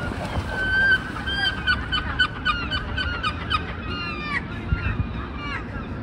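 Waterbirds calling in a fast run of short nasal calls, about three a second, starting about a second in, over water splashing.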